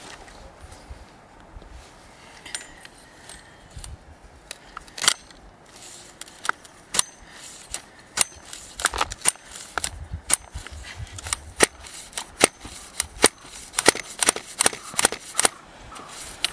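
Sharp, irregular clicks and snaps from a hand handling the fuel line and tuned pipe of a nitro RC buggy engine that is not running. The clicks are sparse at first and come thick and fast through the second half.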